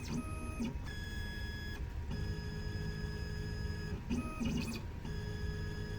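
Silca Gymkana 994 electronic key-cutting machine's stepper motors whining as the carriage moves into position at the start of its automatic key decode. The whine comes as a series of separate moves of one to two seconds each, changing pitch between moves, over a steady low hum.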